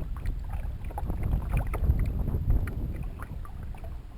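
Water splashing and dripping around a canoe as it is paddled: scattered small splashes and drips over a low wind rumble on the microphone that swells and fades.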